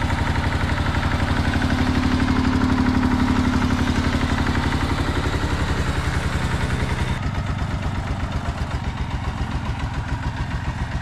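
Massey Ferguson 20C turf tractor engine running with a steady, even firing beat, newly revived after years of sitting. About seven seconds in it is heard from farther off, thinner and quieter.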